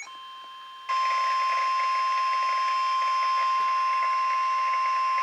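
NOAA Weather Radio 1050 Hz warning alarm tone: one steady, high, piercing tone heard through a radio receiver with static. It comes in faintly and jumps to full loudness just under a second in. The tone marks a warning-level alert, here a flood warning.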